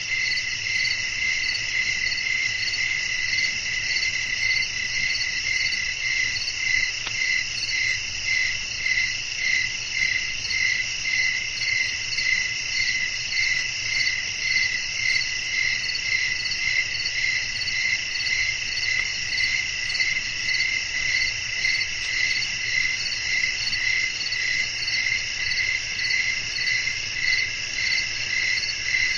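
A dense night chorus of crickets chirping continuously in several overlapping high pitches, pulsing evenly about twice a second.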